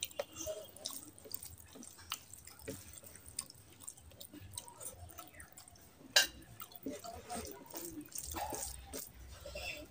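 Close-miked eating sounds: wet, sticky squishing of a hand mixing rice with oily curry on a plate, with small wet clicks and smacks, and one sharp click about six seconds in.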